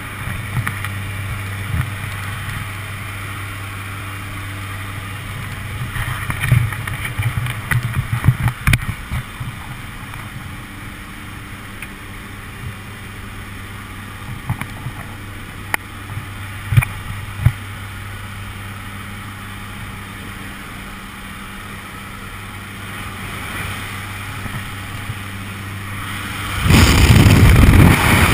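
Jump plane's engines droning steadily inside the cabin, with scattered knocks and bumps from the skydivers moving about. Near the end a loud rush of wind suddenly takes over as the jumpers move into the open door to exit.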